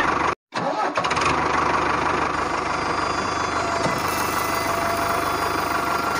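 An engine running steadily at idle, with a sudden short break about half a second in before it carries on at an even level.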